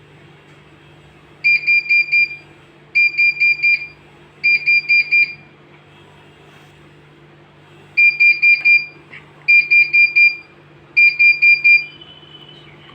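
Bosch washing machine's control-panel beeper sounding six bursts of rapid high beeps, about five beeps per burst, with a longer pause midway, over a faint steady low hum.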